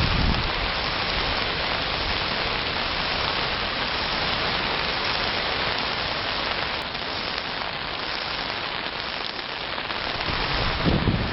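Heavy rain falling steadily in an even hiss, with gusts of wind buffeting the microphone at the start and near the end.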